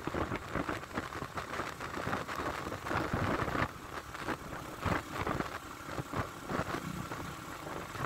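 Motorcycle running at riding speed, heard from the rider's position, with irregular wind buffeting on the microphone.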